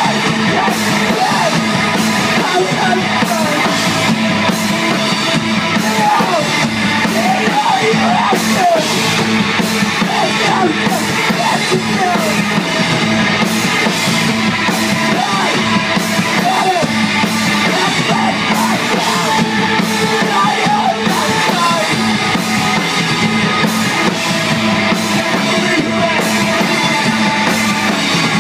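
Live rock band playing loudly: electric guitars, bass and drum kit, with a voice singing over most of it, the vocals dropping out for the last several seconds.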